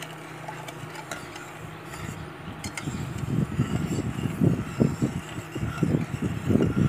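A steel ladle stirring sugar and water in a stainless-steel saucepan, with a light clink against the pan, over a steady low hum. From about three seconds in, loud irregular low rumbling bursts take over until near the end.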